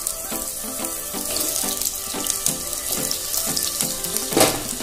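Potato chunks sizzling as they fry in hot mustard oil in a pan, a steady hiss, with a brief louder burst near the end.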